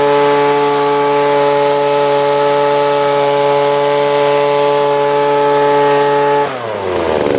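Hyundai HYBV2600X leaf blower's 26cc air-cooled two-stroke petrol engine running at steady high revs, blowing air out through the tube. About six and a half seconds in the engine note drops sharply as the revs fall.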